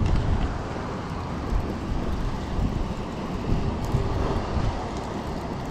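Wind buffeting the camera microphone: a steady low rumble with uneven gusty bumps.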